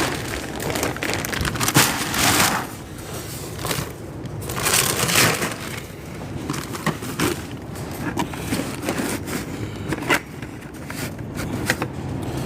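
A paper feed bag of sweet feed being handled and emptied: crinkling and rustling in a couple of noisy bursts, with scattered sharp knocks and clicks.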